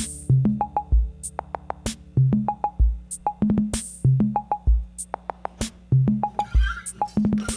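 Electronic background music with a drum-machine beat and a repeating bass line.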